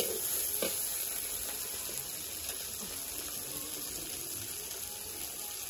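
Tomatoes and vegetables frying in hot oil in a wok, sizzling steadily, with two short spatula scrapes against the pan near the start.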